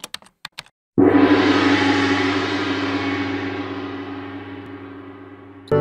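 A gong struck once about a second in, ringing with many overtones and slowly fading over some four seconds, after a few quick clicks at the start. Music comes in just at the end.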